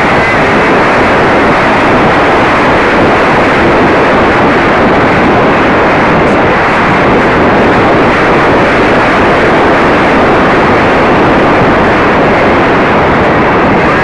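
Radio-controlled model airplane in flight: a loud, steady rush of wind and motor noise, heard from a camera carried on the plane.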